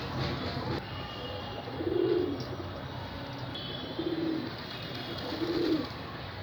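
Pigeon cooing: three low coos, about two seconds apart.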